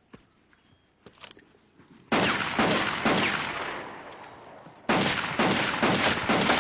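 Rapid strings of pistol shots, fired in quick succession in two volleys: one begins about two seconds in and dies away, and a second begins just under five seconds in.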